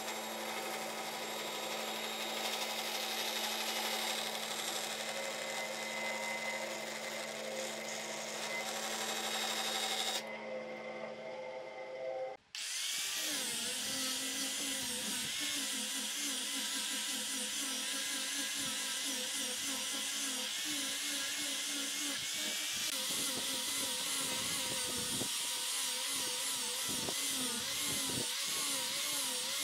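A bandsaw running and cutting through a stack of glued wooden strips, then, about twelve seconds in, an angle grinder with a sanding disc grinding across a curved wooden block, its pitch wavering as it is pressed and moved over the wood.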